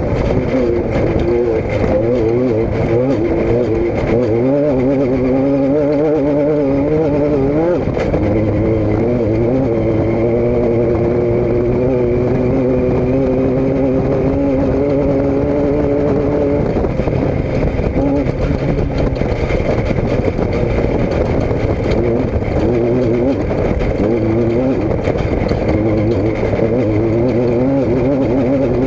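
A motor vehicle's engine running steadily, its pitch wavering slightly and shifting a few times.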